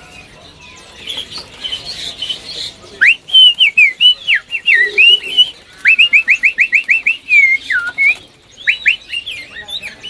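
Caged songbird singing: after a few quiet chirps it breaks into loud, fast whistled phrases of notes sweeping up and down, with a quick run of short rising notes partway through.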